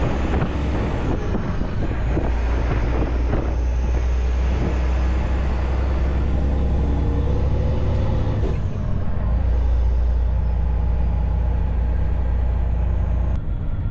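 Semi truck's diesel engine running under way, a steady low drone heard from the cab; its pitch shifts about eight and a half seconds in.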